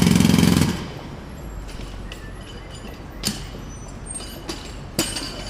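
Jackhammer hammering in rapid, even blows, stopping abruptly under a second in. After it there is a low steady background with two sharp knocks.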